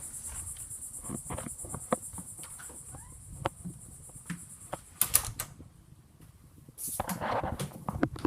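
A steady high-pitched insect-like buzz that cuts off suddenly about five seconds in, with scattered light clicks and knocks throughout, and a louder rustle near the end.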